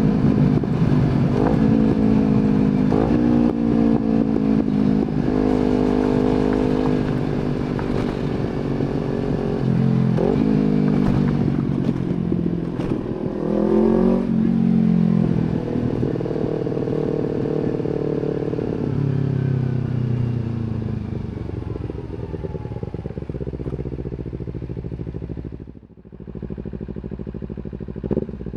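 Kawasaki Z250 parallel-twin engine through an aftermarket slip-on exhaust, riding. In the first half its pitch climbs again and again, with short breaks between as it shifts up through the gears. It then winds down steadily as the bike slows, drops away briefly near the end, and revs up again.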